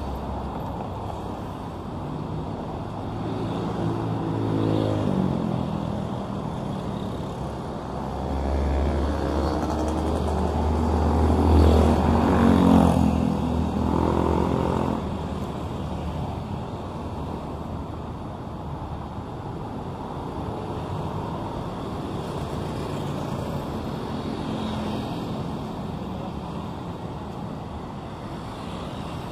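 Street traffic: engines of passing motor vehicles growing louder and fading against a steady road hum. The loudest vehicle passes about 12 seconds in.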